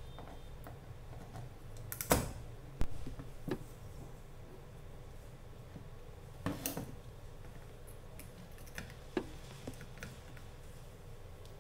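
Scattered sharp clicks and knocks of a circuit board and soldering iron being handled on a hard workbench. The loudest come about two seconds in, with a cluster around six and a half seconds, over a faint low hum.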